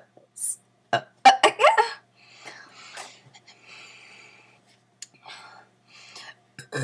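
A girl's breathing and short throat and vocal noises between burp-talking attempts, loudest about a second in. Right at the end a low burp begins.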